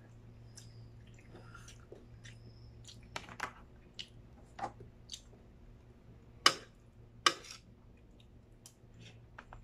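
A person eating: chewing and mouth sounds, with scattered light clicks of a spoon and fork against a plate and foil tray. Two sharp clinks about two-thirds of the way through are the loudest sounds, over a steady low hum.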